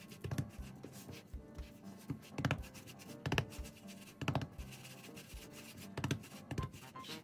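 Background music with a steady beat, a little under a second between beats. Under it is faint rubbing and patting of hands shaping soft curd-cheese dough.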